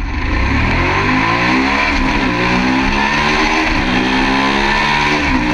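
Ducati Monster's 90-degree V-twin engine accelerating hard up through the gears, heard from the rider's seat: the pitch climbs, drops at an upshift about two seconds in, climbs again and drops at another shift near the end.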